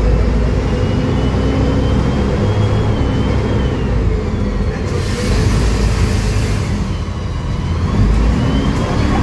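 Mercedes-Benz OM906LA six-cylinder diesel of an O500U city bus running under way, heard from inside the passenger cabin as a steady low rumble with a thin high whine that rises and falls. A burst of hiss comes about five seconds in and lasts about two seconds.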